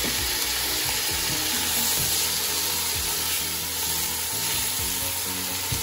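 Fresh fava beans sizzling steadily in hot oil in a frying pan, together with sautéed onion and dried dill.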